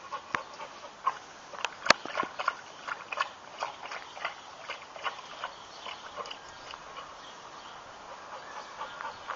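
A dog, tired after a run, lapping water from a stainless steel bowl in quick, irregular wet clicks. The lapping thins out in the last few seconds as it stands panting with its tongue out.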